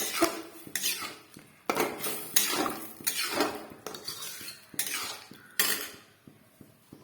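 A metal spoon scraping and stirring a curry in a cooking pan, in repeated strokes about once a second that die down near the end.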